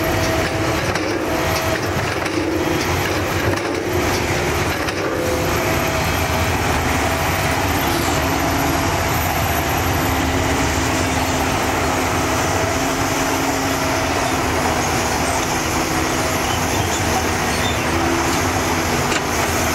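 Kobelco hydraulic crawler excavator's diesel engine running steadily under load as it digs dirt and swings a loaded bucket over a dump truck, with a faint steady whine over the engine noise.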